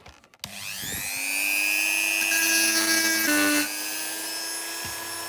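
Small handheld rotary tool spinning up with a rising whine, then running steadily while grinding down the rivet holding a diecast model's front casting; its pitch dips briefly a little after three seconds as the bit bites into the metal.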